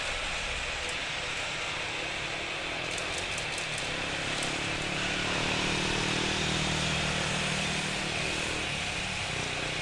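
Boeing 777-300ER's GE90-115B jet engines running as the airliner lands, a steady jet noise with a high whine. From about five seconds in, just after touchdown, the sound grows louder and deeper during the rollout, then eases again near the end.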